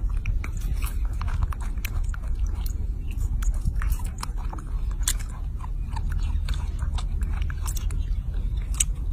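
A baby macaque biting into and chewing juicy fruit close to the microphone: a run of short, irregular wet clicks and crunches, over a low steady rumble.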